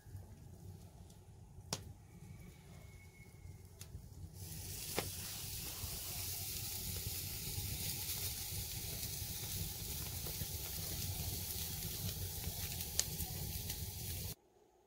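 Chicken breast sizzling on a hot wire grill grate over a wood fire. The loud, steady sizzle starts about four seconds in as the meat goes onto the grate and cuts off suddenly near the end. A few sharp crackles come from the burning wood.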